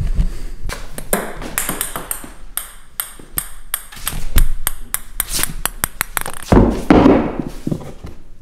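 Handling noise from a handheld camera carried while walking, with footsteps: irregular clicks, knocks and rustles, loudest about seven seconds in.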